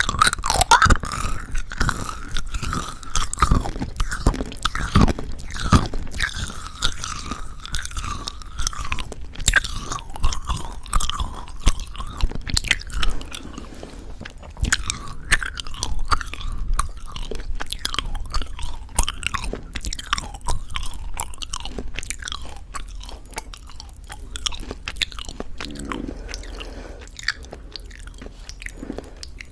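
Close-miked chewing of Happy Jelly chewy candies with a crunchy coating: crisp crackling crunches mixed with wet, sticky chewing. Busier and louder in the first half, softer and sparser toward the end.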